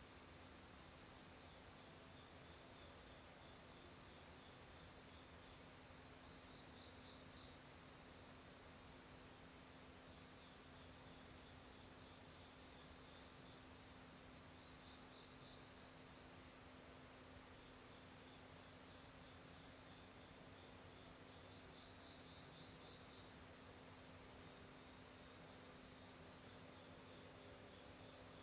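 Faint chorus of night insects chirping: one continuous high trill and a pulsing chirp, with a louder chirp repeating about twice a second in some stretches. A low steady hum sits underneath.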